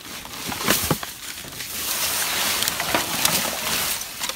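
Plastic bags, dry leaves and paper in a dumpster rustling and crinkling as the trash is rummaged through, with a couple of sharper crackles about a second in.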